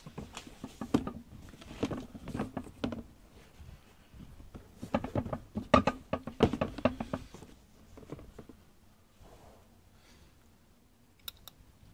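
Handling noise from a pair of Air Jordan 32 sneakers being turned over and moved on a cardboard shoebox: clusters of soft taps and knocks in the first three seconds and again around the middle, then quieter, with two sharp clicks near the end.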